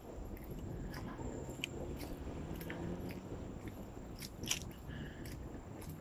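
Walking with a handheld camera: low rumble from wind and handling, with irregular crunching steps and clicks, one sharper click about four and a half seconds in.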